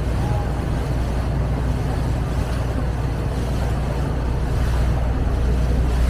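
A river tour boat's engine running steadily under way: a low, even drone.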